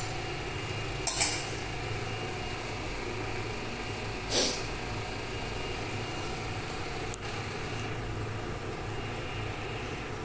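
Steady low hum with a hiss over it, broken by two short, loud bursts of noise, one about a second in and one about four seconds in, and a faint click about seven seconds in.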